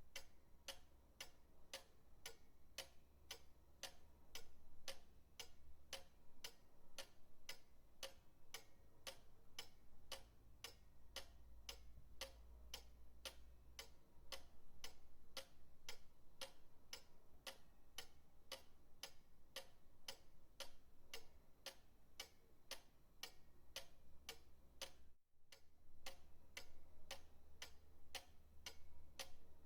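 Pendulum clock ticking steadily, about two ticks a second, over a faint low hum, with a momentary dropout about 25 seconds in.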